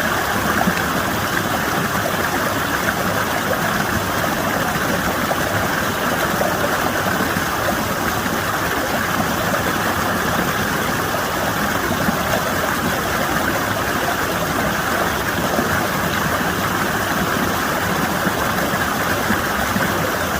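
Water rushing down a narrow rock channel, a steady, even rush of flowing water with no breaks.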